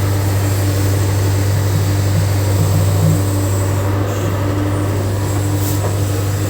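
Heavy diesel engine running at a steady speed, a continuous low drone with no change in pitch.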